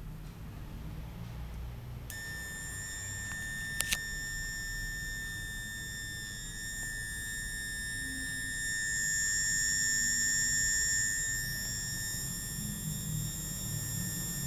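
A steady, high-pitched electronic whine with overtones sets in about two seconds in and holds on, swelling a little in the middle. A quick double click comes shortly after it starts.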